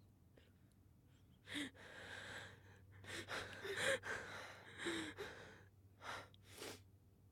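A man's ragged, gasping breaths and half-voiced sobs, about half a dozen in a row, as he breaks down crying.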